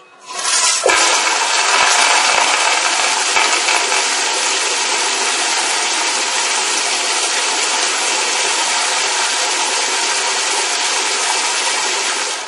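Toilet flushing: a sudden loud rush of water starts just after the beginning and runs steady for about twelve seconds, easing off near the end, with a few faint knocks in the first seconds.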